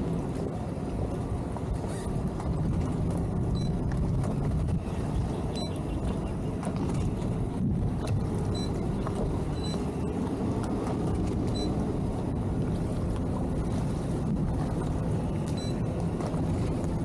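Towboat engine running steadily at slow manoeuvring speed, an even low drone with a few faint high chirps over it.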